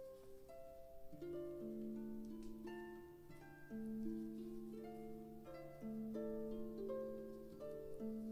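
Background music: a gentle plucked-string melody over held bass notes.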